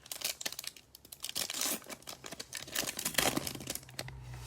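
Foil wrapper of a Stadium Club Chrome baseball card pack being torn open and crinkled, an irregular crackling rustle.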